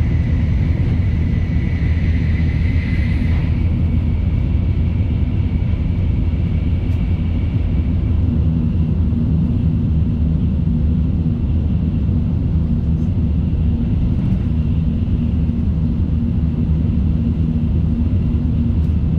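Shinkansen bullet train running: a steady, loud low rumble, with a thin high whine over it for the first few seconds.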